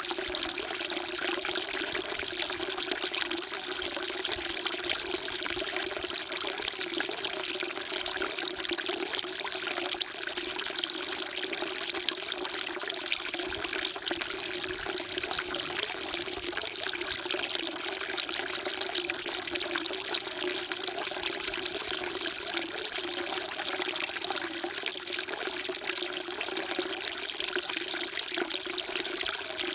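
Water pouring steadily in a thin stream from a carved stone spout into a full stone basin, splashing without pause.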